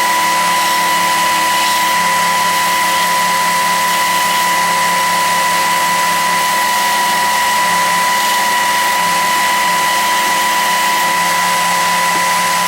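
Belt sander running steadily with a constant high whine while sanding the edge of a wooden boomerang.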